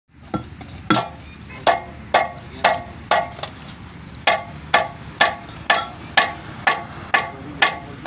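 Hammer blows on steel at the front of a crawler excavator's track: sharp, ringing metal-on-metal strikes, about two a second, with a short pause around the middle.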